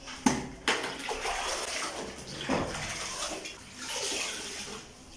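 A floor cloth being dunked, swished and wrung out in a plastic bucket of water, the water splashing in three spells. It opens with two sharp knocks as the plastic bucket is set down on the tiled floor.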